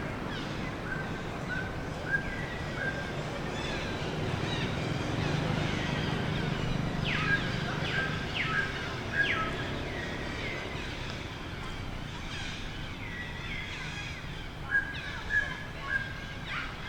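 Baby monkey crying in short, high-pitched squeals that slide downward, mixed with brief chirping calls, in several clusters over a low steady background hum.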